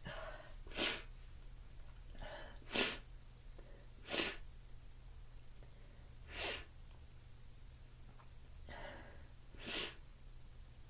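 A person sneezing five times in a row. Each sneeze is short and sharp, and they come a second or three apart. A breath is drawn in before some of them.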